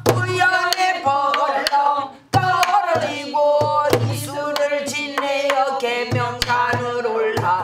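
A woman singing pansori in a full, strong voice, accompanying herself on the buk barrel drum in jungjungmori rhythm: deep thumps of the drumhead and sharp clacks of the stick. She breaks briefly for breath a little over two seconds in.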